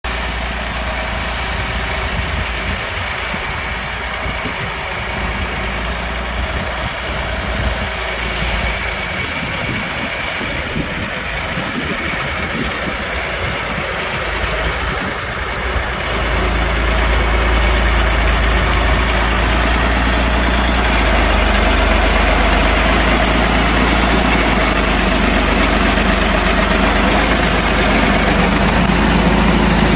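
Gafner mini skidder's engine running as the machine drives through snow. It grows louder and steadier about halfway through as the machine comes close.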